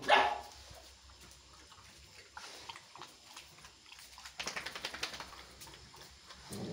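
A Chippiparai dog gives one short, loud aggressive vocal sound at the very start. This is followed by quieter movement and, about two-thirds through, a quick run of light clicking from the dogs at the plastic feeding bowl.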